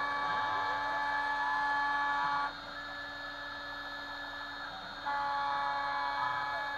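Stepcraft 2/420 CNC router milling aluminium with a Kress FME 800 spindle: a steady whine made of several tones, with fainter tones that sweep down and back up as the axis motors slow, reverse and speed up again. About two and a half seconds in, the upper tones drop out and it gets quieter. They return about five seconds in.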